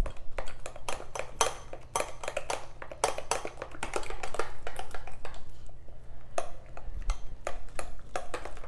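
Metal spoon clinking and scraping against a glass mixing bowl as a thick almond-flour and banana batter is stirred, in quick irregular taps.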